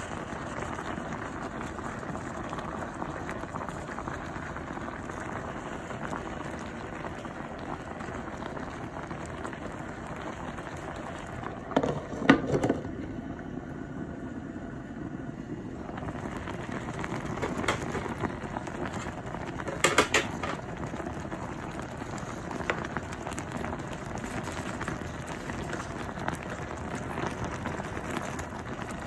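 Sinigang soup bubbling steadily at a boil in a pot. There are sharp metal-and-glass clatters about twelve and twenty seconds in, as a glass pot lid is set down and lifted. The bubbling sounds muffled for a few seconds after the first clatter.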